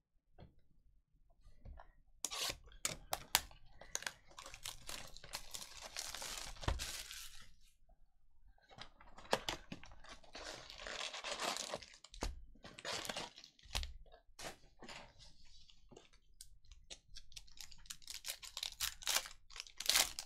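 Panini Mosaic football card packs being torn open and their wrappers crinkled, with the cards clicking and sliding as they are handled. The tearing and rustling comes in three long spells: about two seconds in, about nine seconds in, and near the end.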